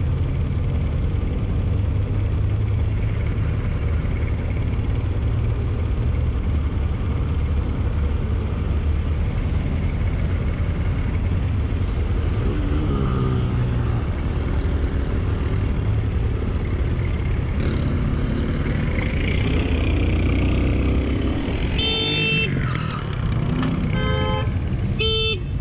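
Motorcycle riding in traffic, its engine and the wind making a steady rumble; the engine note rises and falls once about halfway through. Near the end a vehicle horn sounds three short blasts as a car stops across the rider's path.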